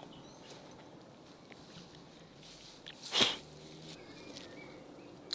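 Cherry tree branches and leaves rustling faintly as ripe cherries are picked by hand, with small ticks and one short, sharp burst about three seconds in.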